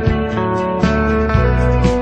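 Instrumental background music with plucked guitar over a steady bass line.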